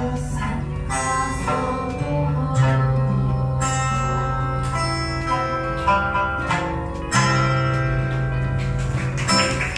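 Live Okinawan folk music played on a sanshin and an acoustic guitar, plucked notes ringing over long held low notes.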